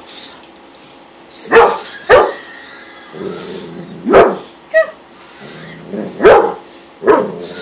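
Dalmatian barking: about six short single barks at uneven intervals, one of them brief and higher. The dog is in a play bow facing a ceramic dog statue, so these are playful barks at what it takes for another dog.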